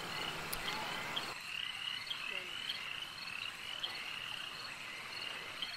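Faint night ambience: short, high chirping calls repeating evenly, two or three a second, over a soft hiss that drops away about a second and a half in.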